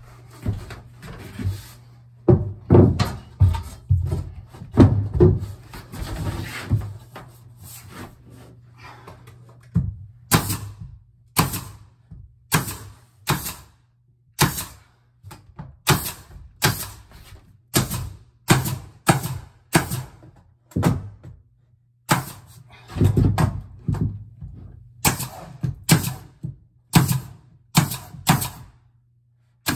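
Cordless nail gun firing nails through a plywood panel into the wall framing: about twenty sharp shots, roughly one to two a second, through the second half. Before that, irregular thumps and knocks as the plywood panel is pushed into place against the wall.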